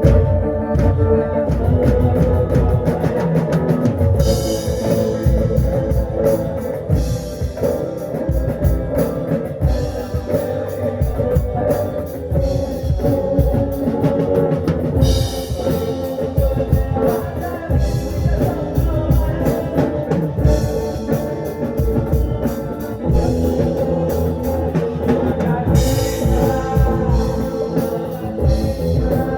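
Rock band playing live, with drum kit, electric guitar and bass.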